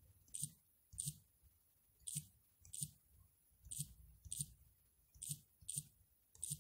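Key-press clicks from typing a password on a tablet's on-screen touch keyboard: about nine short, sharp clicks at an uneven pace, one per character.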